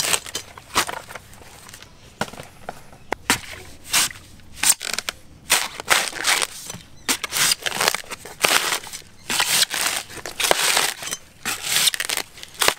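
Dry crunching and crackling of coconut husk in short, irregular bursts, several a second, as husked coconuts are handled and trimmed.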